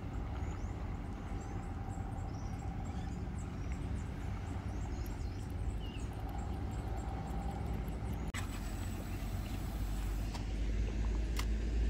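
Steady low rumble of road traffic, with faint bird chirps and a brief louder hiss about eight seconds in.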